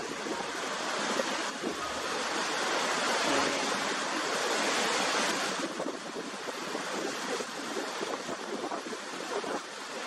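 Niagara Falls pouring over its rocky brink: a steady rush of falling water that eases slightly a little past halfway through.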